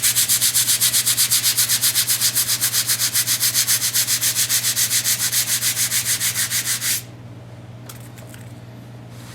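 Fast back-and-forth scrubbing of grout lines in a vinyl tile floor, wet with cleaner, at about six or seven strokes a second, stopping abruptly about seven seconds in. A steady low hum runs underneath.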